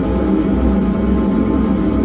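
Music played from a USB drive through a 4440-IC amplifier board and its speaker, loud with heavy bass. The amplifier is still unrepaired, and its owner complains that its sound comes out cracked and distorted.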